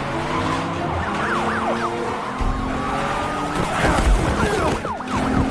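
Several police sirens wailing and yelping at once, their pitches sweeping rapidly up and down and overlapping, over car noise in a film sound mix. A few heavy low thuds come through, the loudest about four seconds in.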